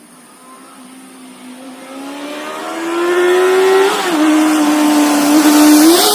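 Stock Honda CBR650F inline-four engine approaching under acceleration. The engine pitch rises and grows louder, drops once about four seconds in as the rider shifts up, then holds steady. It peaks at its loudest as the bike passes near the end, and the pitch begins to fall.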